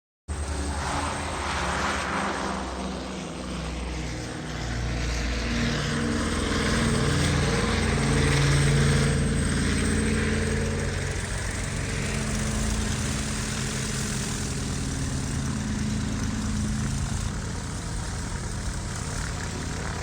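An engine sound effect that starts abruptly and runs continuously, its pitch shifting up and down, loudest about halfway through.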